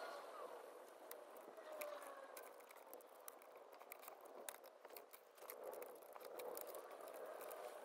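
Faint small clicks and soft sliding of plastic N-gauge Shinkansen model cars as they are set down on a table mat and pushed end to end, with a slightly longer rubbing slide a little past the middle.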